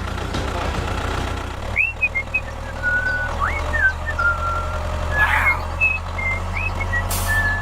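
Bulldozer's diesel engine running with a steady low rumble. From about two seconds in, a series of short high whistle-like tones sounds over it, some sliding up in pitch.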